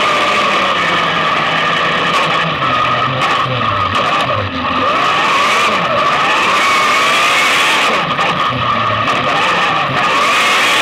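Onboard sound of an autograss racing car's engine running at high revs on a loose dirt track, the revs dropping and climbing again a couple of times through the corners.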